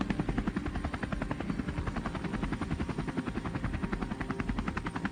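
Bell V-280 Valor tiltrotor's proprotors beating in a low hover, a rapid, even thumping over a steady rumble.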